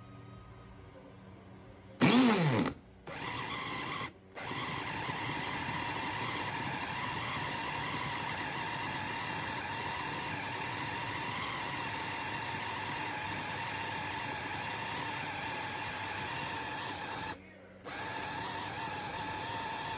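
OTTO CP-390B electric chopper's motor spinning its four blades through raw meat in the glass bowl. It starts with a loud burst about two seconds in, then runs as a steady whine, stopping briefly twice: once about a second after starting and once near the end.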